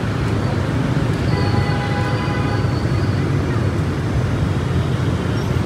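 Motorbike traffic on a city street, heard from among the scooters: a steady low rumble of small engines and tyres. A faint held tone sounds from about a second in and lasts about two seconds.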